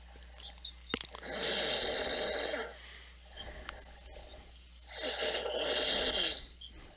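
A sleeping person snoring: two long, loud snores about three and a half seconds apart, with a quieter breath between them.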